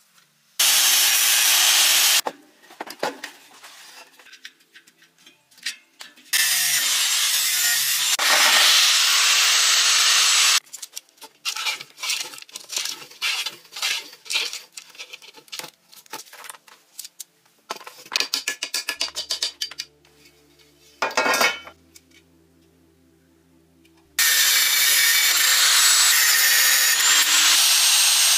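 A cordless angle grinder cutting through an aluminium bicycle rim in three long, loud passes. Between the passes comes a run of quick metallic clicks and clinks.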